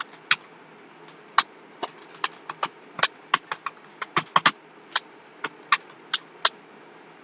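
Computer keyboard being typed on: single keystrokes clicking at an uneven pace, a few a second, with short pauses between words.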